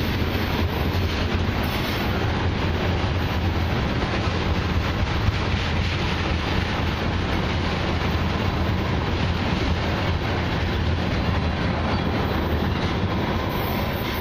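Loaded crude oil tank cars of a long freight train rolling past: a steady rumble of steel wheels on the rails.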